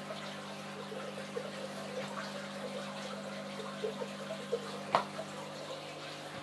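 Aquarium filters and pumps running: water trickling and splashing steadily over a low electrical hum, with one sharp click about five seconds in.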